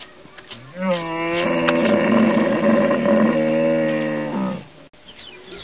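Hippopotamus calling: one long, low, steady call of about three and a half seconds that starts about a second in, rises briefly at the start and falls away at the end.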